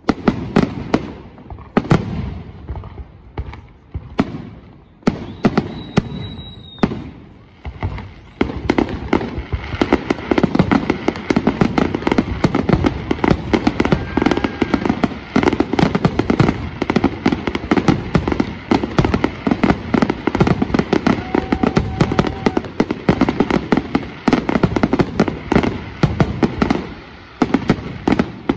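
Fireworks display: aerial shells bursting with separate bangs a second or two apart, then from about eight seconds in a dense, continuous barrage of rapid bangs.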